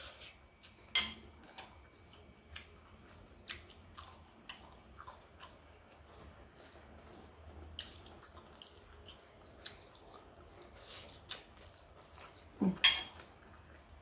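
Eating sounds: a metal spoon clinking and scraping in a ceramic bowl with small mouth and chewing clicks scattered throughout, and one louder smack near the end.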